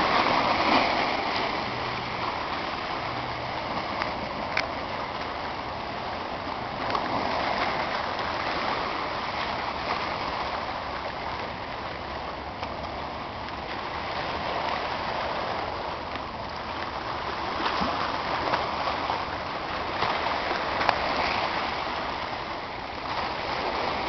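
Small waves washing and splashing over boulders at the water's edge: a continuous wash that swells every few seconds as each wave surges in.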